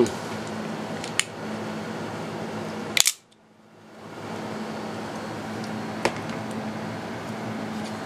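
Sharp metallic clicks from a hand handling Italian swing-guard switchblades: a small click about a second in, the loudest snap about three seconds in, and another near six seconds. A steady low hum runs underneath, and it drops away for about a second after the loud snap.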